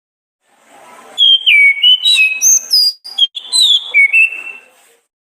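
Orange-headed thrush (Anis kembang) singing a phrase of clear whistled notes that step up and down in pitch, with a brief break about three seconds in.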